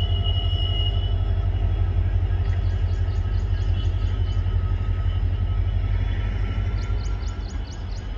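Two coupled WDG4D diesel locomotives rolling slowly past, their engines giving a loud, fast-pulsing low rumble with a steady whine above it, easing off over the last couple of seconds. Short runs of high chirping come twice.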